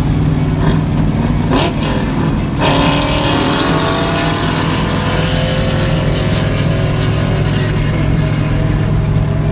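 Corvette V8 engine and exhaust heard from inside the cabin at freeway speed over steady road noise. About two and a half seconds in it gets suddenly louder as the car accelerates, and the engine note climbs for a few seconds.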